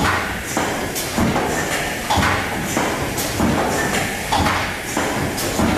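SP-U10 automatic suppository forming, filling and sealing machine running, its stations cycling with a regular clatter of mechanical knocks about twice a second over a steady machine din.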